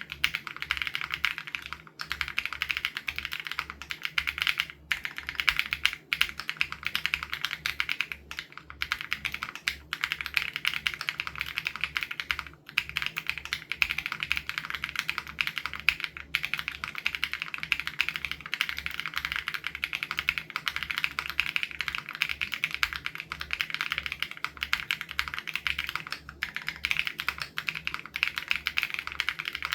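Continuous fast typing on an SPM AL87B custom mechanical keyboard with BSUN Raw switches: dense runs of keystroke clicks broken by short pauses every few seconds.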